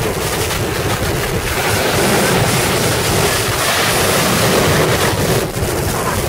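Wind buffeting the microphone over the steady wash of small waves on a beach.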